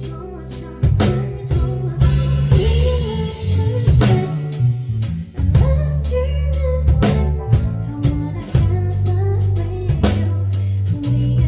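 Live band playing an indie song: a singer's voice carried over a drum kit keeping a steady beat, bass and guitar.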